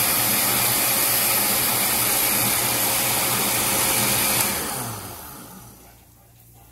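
Oster countertop blender running steadily, pureeing tomatoes with no added water. About four and a half seconds in it is switched off and the motor spins down with a falling pitch, fading out over about a second and a half.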